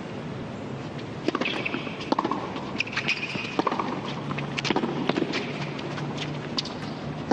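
Tennis rally on a hard court: a racket strikes the ball back and forth about once a second, with a few short shoe squeaks on the court surface in between.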